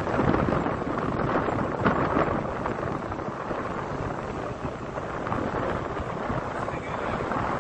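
Strong wind buffeting the microphone, a dense rumbling rush that gusts louder during the first two seconds, over the wash of choppy river waves.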